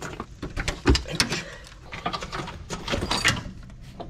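Irregular clicks and knocks of hand tools and metal parts being worked on the underside of a car, loosening parts around the front subframe and steering shaft.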